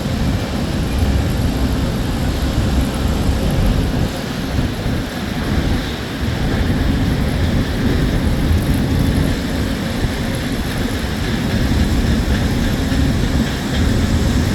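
Loud, steady rumble and din of sawmill machinery running while the mill is processing redwood logs.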